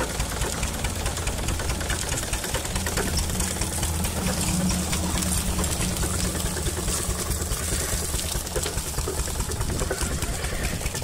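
A belt-driven sugarcane crusher running steadily, powered by a small stationary engine with a fast, even knocking beat, while cane stalks are fed through and crushed between its geared rollers.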